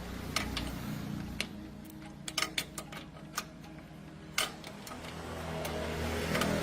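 Scattered light clicks and taps over a low steady hum, with a rising noise that grows louder near the end.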